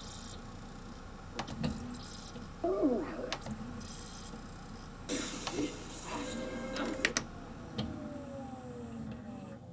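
Pioneer CLD-M301 LaserDisc player seeking between chapters on a CAV disc: sharp button and mechanism clicks, with whirring and squeaky sweeps as the pickup moves across the disc. Near the end several falling tones slide downward as the disc spins down for the tray to open.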